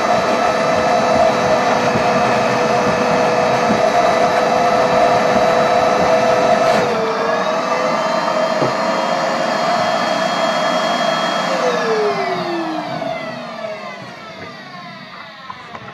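Cheap household hoover (vacuum cleaner) running steadily while sucking dirty water out of a boat's bilge, with a brief change in its note about seven seconds in. About twelve seconds in it is switched off and the motor winds down with a falling whine.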